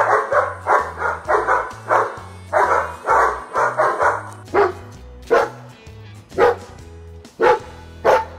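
German Shepherd barking: a fast run of barks, about three a second, for the first four seconds or so, then single barks roughly once a second. Background music with a low bass line plays underneath.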